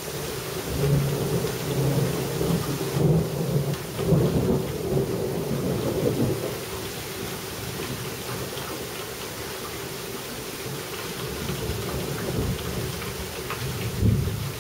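Heavy rain falling steadily, with a low rolling rumble of thunder through the first few seconds and a short low boom near the end.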